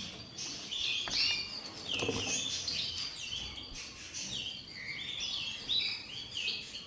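Canary fledglings chirping continuously: quick, overlapping, high chirps, each note sliding down in pitch, several a second from more than one bird.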